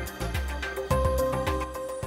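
Instrumental background music with a steady beat, sharp percussive hits over low bass notes and held tones.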